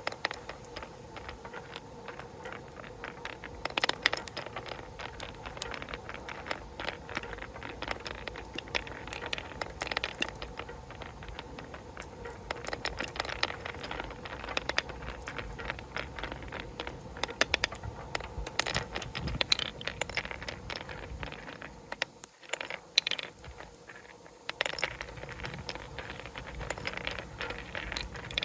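Marbles and wooden balls rolling and clattering along a wooden marble run, a dense stream of small clicks and rattles that thins out briefly near the end.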